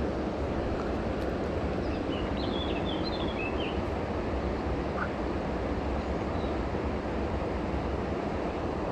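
Steady rushing of flowing river water at an outflow, with a few faint, short high chirps about two to four seconds in.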